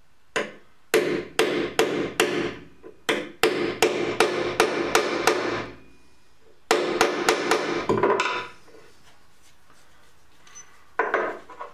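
Hammer blows struck in quick succession, about two or three a second, in two runs with a pause between them and a few more blows near the end.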